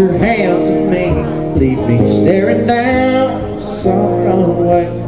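A man singing live to his own acoustic-electric guitar, with steady chords under the voice; the singing breaks off about four seconds in while the guitar plays on.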